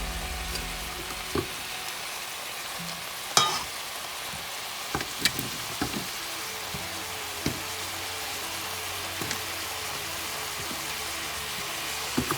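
Vegetables frying in a pot on medium-high heat, a steady sizzle, with occasional clicks and knocks from stirring, the loudest about three seconds in.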